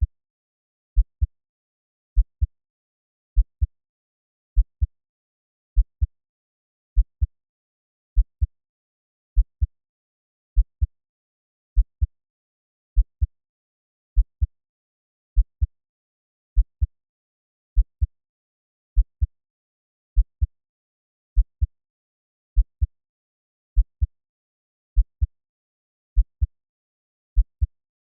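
Slow heartbeat sound at 50 beats per minute: a low double thump (lub-dub) about every 1.2 seconds, with silence between beats.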